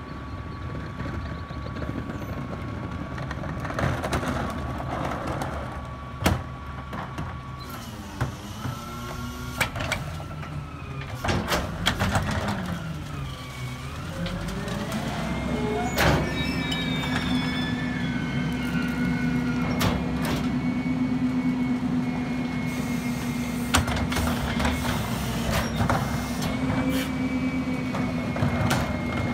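Engine of a CNG rear-load garbage truck (MRU/Ez-Pack Goliath body) running. Its pitch dips, then rises about halfway and holds steady at a higher speed while the hydraulic cart tipper works. Sharp knocks and bangs come as a wheeled cart is hooked on, tipped into the hopper and set back down.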